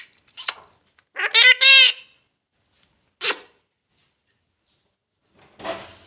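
Pet parrot giving two short, loud pitched calls about a second in, each rising and then falling. A sharp click comes near the middle, and a soft rustle comes near the end.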